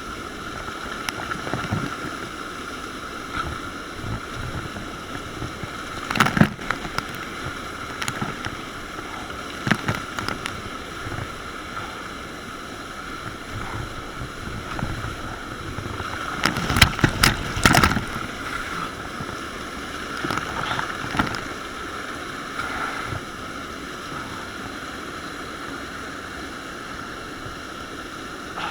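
Kayak on moving river water: a steady rush of water with scattered paddle splashes and knocks, a cluster of louder ones about two-thirds of the way through.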